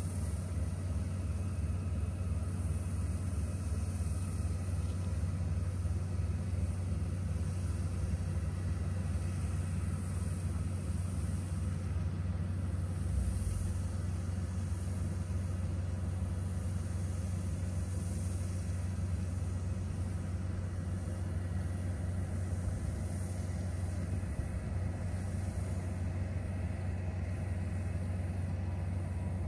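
Combine harvester engine running steadily in a rice field, a low, even hum with no change in pitch or load.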